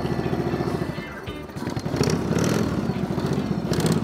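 Custom chopper motorcycle engine running as the bike rides past, a steady rapid exhaust pulse that dips briefly about a second in and then comes back louder. Music plays underneath.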